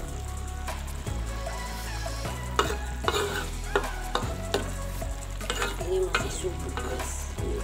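A spatula stirring and scraping pindang fish in a thick chili sauce in a wok while the sauce sizzles and bubbles. There are a few sharp knocks of the spatula against the pan partway through.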